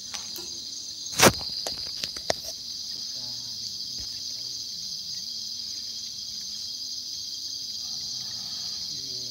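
Evening chorus of insects: a steady, high-pitched trilling. A sharp click about a second in, followed by a few lighter clicks, stands out as the loudest sound.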